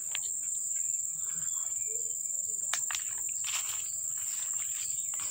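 Insects buzzing outdoors with a steady, unbroken high-pitched drone, broken by a few short rustles and clicks.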